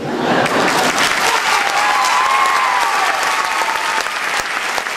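Large audience applauding loudly, breaking out as the singing stops.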